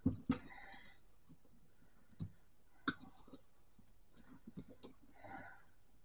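Scattered sharp clicks of wire cutters snipping wires and of the electric typewriter's plastic and metal parts being handled, two close together at the start and a few more spread out after.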